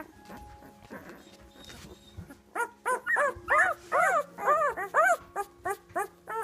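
Week-old Labrador Retriever puppies whimpering and crying: a run of short, high cries, each rising then falling in pitch, starting about two and a half seconds in and coming about two a second.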